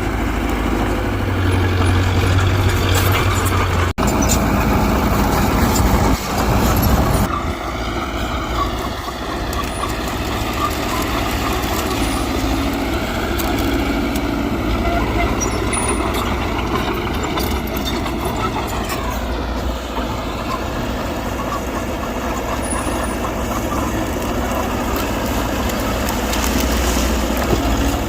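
Diesel engine of heavy earthmoving machinery running steadily under load, its pitch rising and falling slowly as it works. There is a brief dropout about four seconds in.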